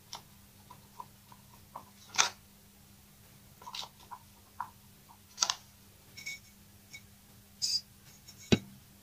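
Flat craft stick stirring thick black-tinted epoxy hardener in a clear plastic cup, scraping and clicking against the cup's sides in short irregular strokes, with a sharper tap near the end.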